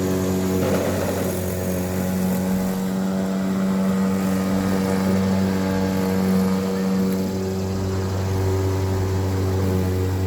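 DeWalt 20V MAX 21.5-inch cordless self-propelled lawn mower running: a steady electric motor and blade hum, with a brief noisier rush about a second in.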